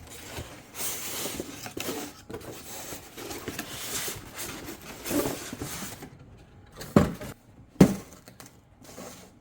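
Cardboard box and packaging being handled and rummaged through, with a steady rustling for several seconds, then two sharp knocks about a second apart as items are set down.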